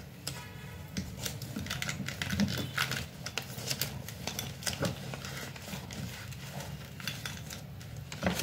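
Irregular small clicks and scratches from handling a pen and notebook paper, over a low steady hum.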